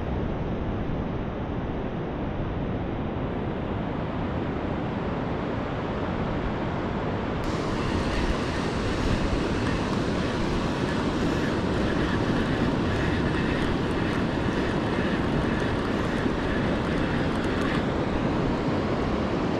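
Wind rumbling on the microphone over the steady wash of surf.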